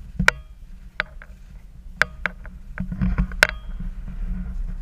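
Sharp metallic clinks with a short ring, several at irregular spacing about a second apart, from gear on a person moving over snow. A low wind rumble on the microphone runs under them.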